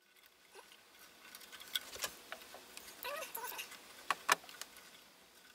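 Faint rustling and light clicking of hands handling insulated wires inside a metal amplifier chassis, with a few sharper ticks about two seconds in and again just past four seconds.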